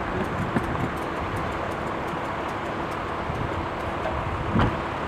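Steady vehicle noise, a low rumble under an even hiss, with a brief click about four and a half seconds in.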